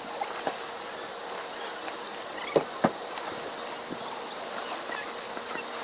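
Steady high hiss of insects chirring in the grass, with two sharp clicks close together about two and a half seconds in.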